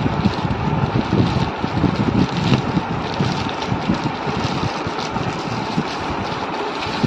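Plastic courier packaging rustling and crinkling close to the microphone as a parcel is handled and opened, in a continuous run of uneven crackles.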